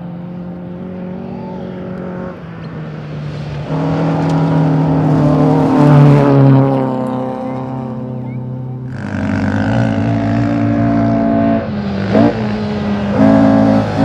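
Rally car engines at hard throttle on a gravel stage: one car accelerating away, its engine climbing in pitch through about the middle and then fading, followed by the next car approaching with its engine rising and getting louder toward the end, with a brief drop and recovery in pitch near the end.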